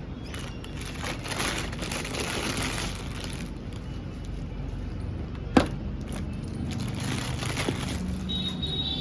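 Rustling and crinkling of balloon packaging being handled, in two stretches, with one sharp snap a little past halfway, over a steady low rumble.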